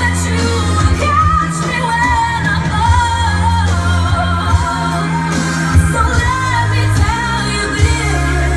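Recorded pop song with a singer's voice carrying a wavering melody over long, steady bass notes, played loud.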